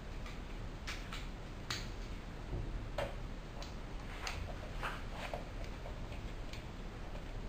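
Hand screwdriver clicking as it turns out a screw on the underside of a laptop, a few short irregular ticks about one or two a second.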